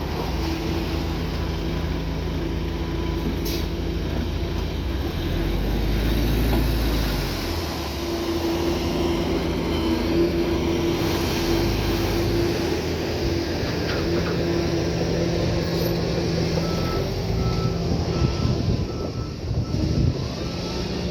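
Heavy diesel earthmoving machinery running steadily under load. Near the end a reversing alarm starts beeping, about two beeps a second.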